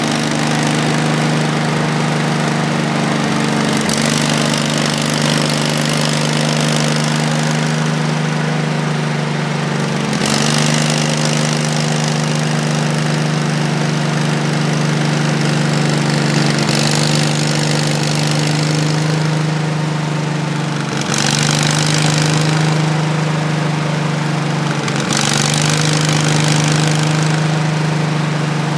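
Portable bandsaw sawmill's gasoline engine running steadily under load while the band blade cuts through a log, the cutting noise swelling and easing every few seconds. The owner says the mill's engine is running poorly and needs maintenance.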